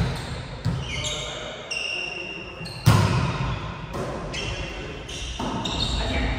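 Volleyball being struck during a rally in a gym hall: several sharp smacks of the ball, the loudest about three seconds in, each ringing on in the hall. Short high squeaks of shoes on the court come in between.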